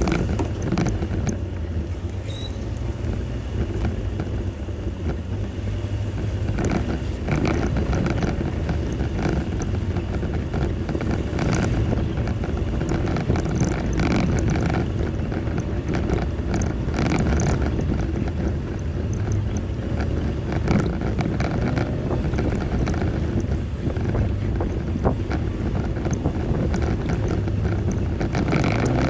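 Jeep driving slowly over a rough off-road trail: a steady low engine and drivetrain rumble, with scattered knocks and clicks from the trail throughout.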